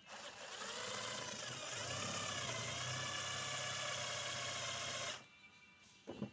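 Electric drill motor running for about five seconds, its whine dipping and wavering in pitch partway through as it takes load, then stopping abruptly.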